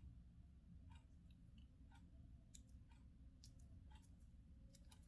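Near silence: faint room hum with a handful of soft, scattered clicks.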